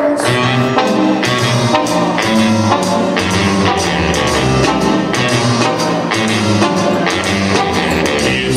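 Instrumental music with a steady beat and a bass line, the introduction to a song that a solo performer dances to.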